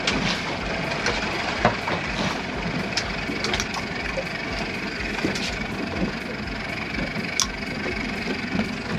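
Boat's outboard engine running steadily, with a few faint clicks and knocks over it.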